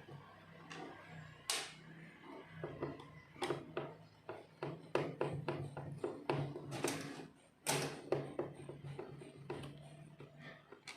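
Screwdriver and hands working on a plastic car instrument-cluster housing while its screws are removed. Irregular clicks, taps and knocks of tool and plastic, over a faint steady hum.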